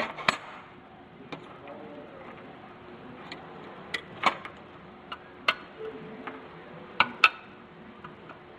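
A 7/8 wrench clinking against the metal of a Tremec TKO 600 transmission while a part is loosened and removed: irregular sharp metallic clicks, about nine of them, loudest near the start and again about seven seconds in.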